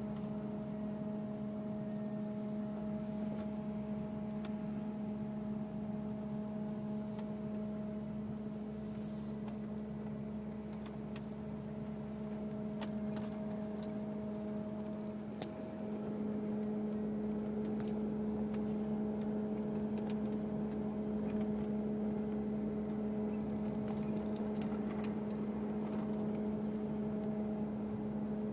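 Steady, even-pitched hum with overtones from the engine compartment of a 2002 Mercury Grand Marquis while it is driven, a random noise that does not follow speed, bumps or gear. It grows a little louder about halfway through, with faint scattered clicks over it.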